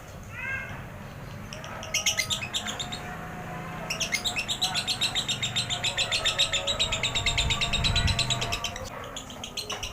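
Lovebird singing its long rapid chatter ('ekek panjang'): a short burst about two seconds in, then a long unbroken run of fast, high repeated notes from about four seconds until shortly before the end.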